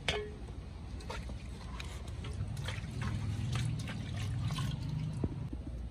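Liquid trickling and splashing, with many small sharp clicks scattered throughout.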